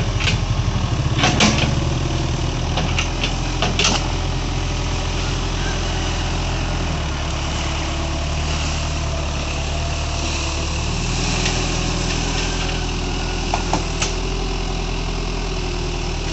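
Diesel engine of an excavator running steadily while its hydraulic boom and bucket work in the water, the engine note shifting a couple of times as the hydraulics load it. A few sharp knocks come in the first four seconds and once more about fourteen seconds in.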